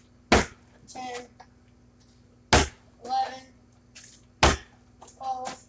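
A plastic milk jug being flipped and smacking down on a concrete floor three times, about two seconds apart, each a sharp hit.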